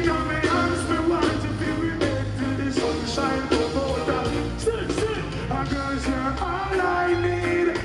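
Live concert music: a band playing a slow song with a steady drum beat and a strong bass line, with singing over it.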